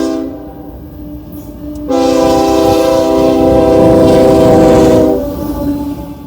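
First-generation Nathan Airchime K5HL five-chime locomotive air horn sounding a chord. The end of one blast comes right at the start, then a long blast of about three seconds begins about two seconds in and fades away, over the low rumble of the passing train.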